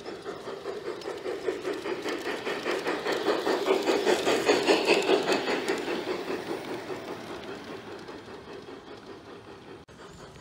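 G-scale model freight cars rolling past on garden railroad track, the wheels clicking rapidly and evenly over the rail joints. The sound grows louder as the cars come close about halfway through, then fades as they move away.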